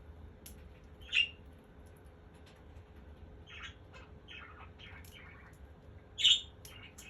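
Pet parakeet giving short squawks and chirps: two louder squawks, about a second in and near the end, with a run of softer chirps between them.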